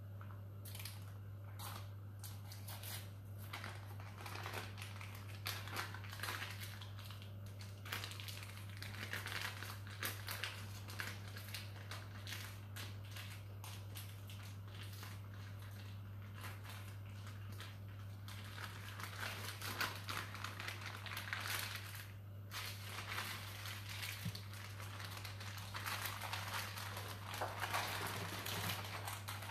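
Baking parchment rustling and crinkling in irregular bursts as it is slowly peeled off a baked pistachio sponge sheet. A steady low hum runs underneath.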